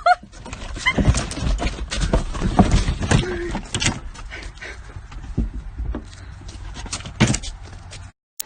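Animal sounds: irregular knocks and clatter with a few short calls, cut off abruptly near the end.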